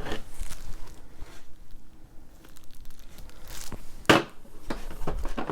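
Plastic packaging wrap crinkling as it is handled, with a few sharper crackles, the loudest about four seconds in.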